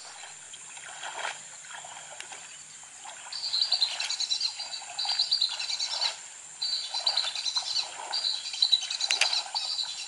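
High, rapid chirping trills from a wild animal, repeated in bouts of about a second with short breaks, starting about three seconds in.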